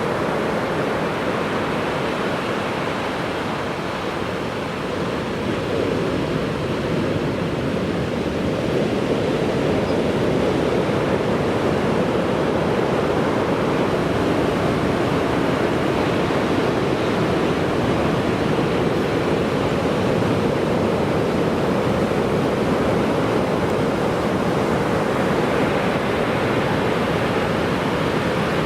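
Heavy ocean surf breaking on a sandy beach, a steady unbroken wash of waves; the surf is a typhoon swell close to closing out.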